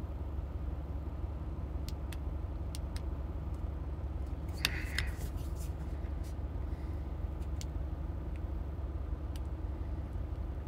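A steady low rumble throughout, with a few light clicks scattered through it. A small cluster of clicks comes about halfway in. The clicks are the Anker LC90 LED flashlight's stiff push-button being pressed to cycle its light modes.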